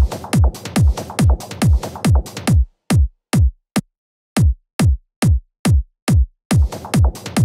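Four-to-the-floor electronic trance kick drum at 140 BPM, each hit a short thump falling in pitch, with a sampled percussion loop playing along for the first two and a half seconds. The kick then plays alone, dropping one beat, until another drum loop comes in near the end: percussion loops being auditioned for low-mid content.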